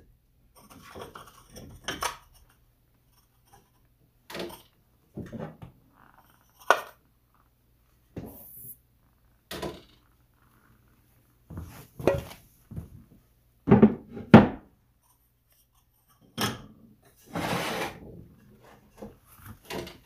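Garden pots being handled and set down: scattered thunks and knocks, the loudest two close together about fourteen seconds in, and a longer, rougher scrape a little after seventeen seconds.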